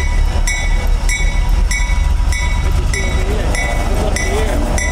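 A locomotive bell rings steadily, just under two strikes a second, over the low rumble of a small diesel switcher locomotive rolling slowly past.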